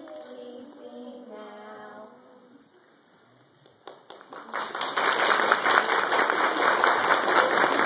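Young children singing the last notes of a song, which die away after about two seconds; after a short lull, audience applause breaks out about four and a half seconds in and keeps going.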